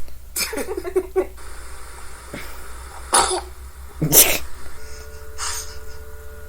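A baby sneezing: several short, sharp sneezes, the loudest about four seconds in.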